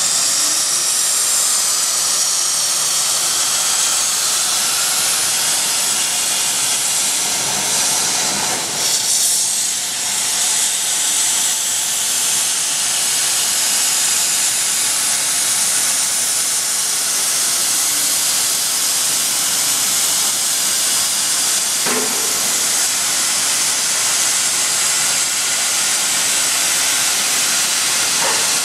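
Plasma torch of a portable CNC plasma cutting machine cutting metal plate: a loud, steady hiss of the arc and its gas jet, dipping briefly about ten seconds in.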